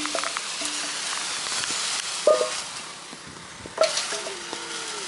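Mango tree leaves and branches rustling as long poles are pushed up into them: a steady high hiss, broken by two sharp knocks.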